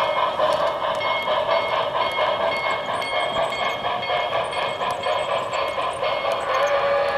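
Model passenger train of New York Central cars rolling along the layout track, giving a steady running and rattling sound with faint ticks from the wheels. A steady tone sets in near the end.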